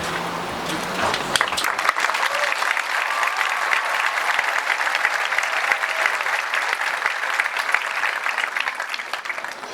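Crowd applauding, swelling about a second in.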